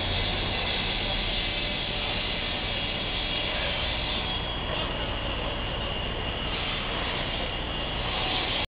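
Steady outdoor street noise on a handheld camcorder: a continuous rushing sound with a low hum underneath, unchanging throughout.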